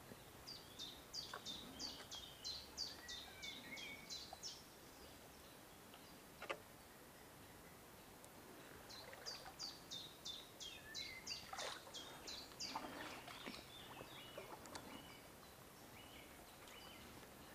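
A songbird singing faintly: two long phrases of rapid, evenly spaced high notes, each sliding downward, about three a second, with a short pause of several seconds between phrases. A single sharp click about six and a half seconds in.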